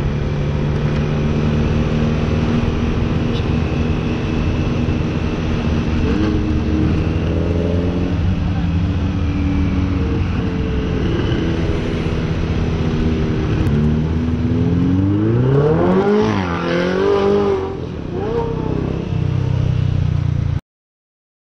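Motorcycle ride in traffic close behind a Ferrari 488 GTB with a Capristo exhaust: a steady engine drone, then about fifteen seconds in an engine revs hard, rising steeply in pitch and falling away as the Ferrari pulls ahead. The sound cuts out abruptly just before the end.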